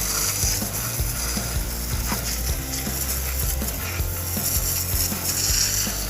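Water spray hissing steadily against a motorcycle as the mud is washed off, with rattly clicks and background music underneath.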